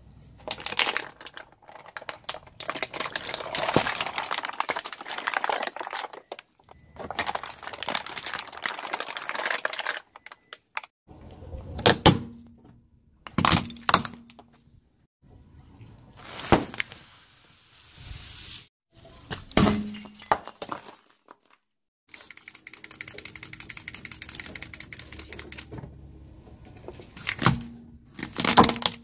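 A car tyre crushes objects one after another. Long stretches of crackling, crunching plastic, with plastic bottles flattened under the tyre, alternate with single sharp cracks, about six of them, mostly in the second half.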